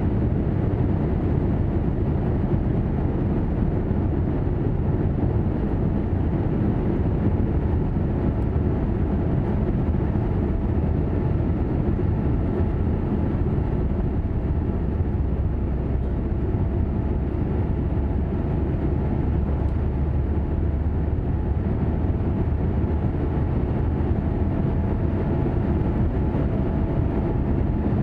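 Steady low rumble in the cabin of a Boeing 787-8 rolling on the ground, its GEnx-1B engines holding an even setting with no spool-up.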